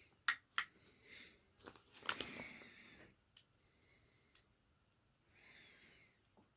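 Faint clicks and taps as a string of fairy lights is fed into a glass bottle, with soft breathy hisses between them.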